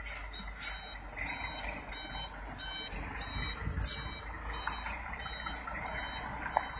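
Faint quick series of short, high electronic beeps at two alternating pitches over a steady low traffic rumble, with a sharp click about four seconds in.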